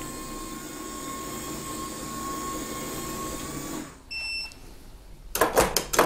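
The smart lock cylinder's motor whirring steadily for about four seconds, then stopping, followed by a short electronic beep. The lock fails to unlock because the key is left in the cylinder. A few sharp clicks follow near the end as the lever handle is pressed.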